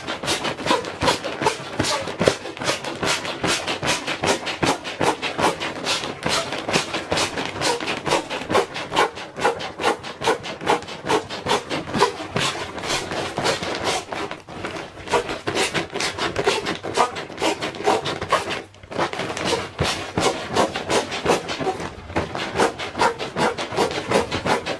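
Built-in pump of an inflatable camping mat pressed down repeatedly by hand, the TPU-coated ripstop nylon crinkling and rustling with each push as the mat fills with air. The pumping keeps up throughout, with a brief break about three-quarters of the way in.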